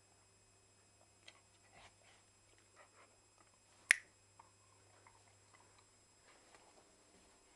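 Faint ticks and shuffles of an Akita puppy moving about on a hard floor, with one sharp snap about four seconds in.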